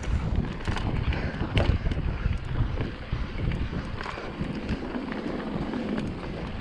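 Wind buffeting the microphone of a mountain biker's worn camera during a fast downhill run over rocky ground, with scattered knocks and rattles from the bike.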